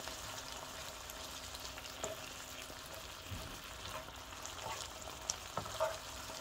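Ground chicken sizzling in a nonstick electric skillet as a slotted spatula stirs and scrapes through it, with a few light clicks of the spatula against the pan.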